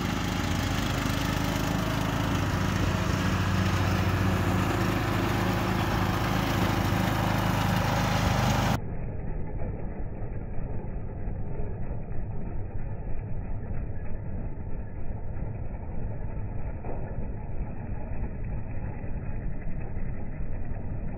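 John Deere riding lawn mower running with its blades engaged, mulching thick dead grass on the lowest deck setting: a steady engine hum under the cutting noise. About nine seconds in, the sound turns muffled and its level becomes more uneven.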